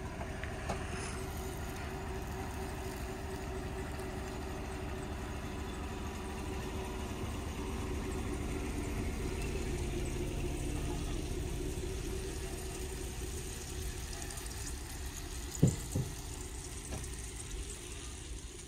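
Pickup truck engine idling steadily, an even low hum. Two short, sharp, louder sounds come close together near the end.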